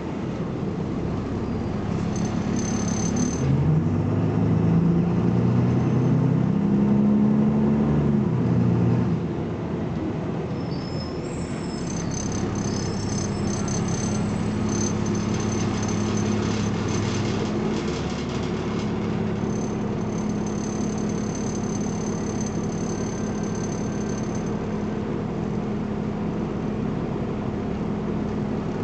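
BMC Belde 220-SLF city bus engine accelerating hard: the revs climb and bend through gear changes for about five seconds, then ease off sharply about nine seconds in and settle into a steady hum. Thin high whines come and go over it.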